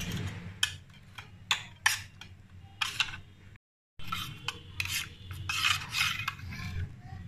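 Steel spoon stirring milk powder into milk in a stainless steel bowl, clinking and scraping against the bowl. Separate sharp clinks at first; after a brief cut-out about halfway, quicker, steadier scraping and clinking.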